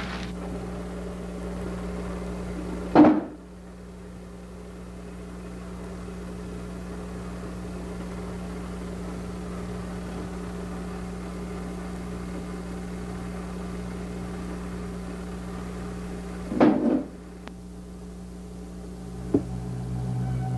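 A steady low hum with a few faint sustained tones above it, broken by two short loud blips, one about three seconds in and one about four seconds before the end.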